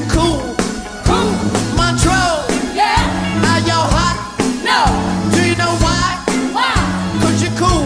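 Live band music with a steady, bass-heavy beat and a lead line bending up and down in pitch.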